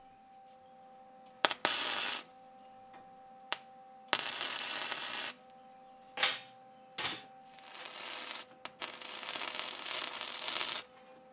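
Wire-feed welder arc welding a steel nut to a steel bar in several short runs: a loud crackle and sizzle that starts and stops about six times, the longest run near the end lasting about two seconds.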